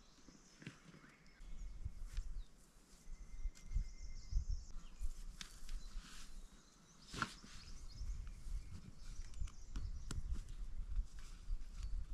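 Luggage rustling and clunking as a bag is carried over and fitted onto a motorcycle's rear rack, with footsteps on dry grass and a sharp click about seven seconds in. A gusty low rumble sets in about a second and a half in.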